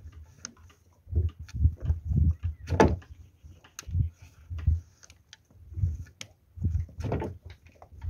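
Irregular wooden knocks and thumps with light clicks as a pole and rope are handled against a wooden boat. The heaviest knocks come about three seconds in and again near seven seconds.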